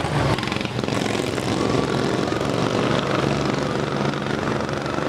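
Several racing lawn mower engines running hard at high revs as the mowers race past together, a steady buzzing drone.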